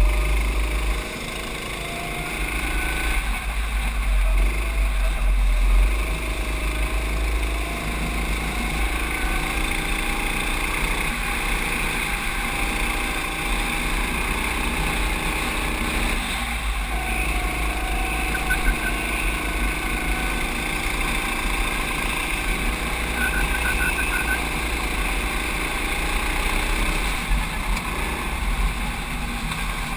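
Racing go-kart engine heard from onboard, running hard with its note dropping and climbing again a few times through the lap, over a steady rush of noise.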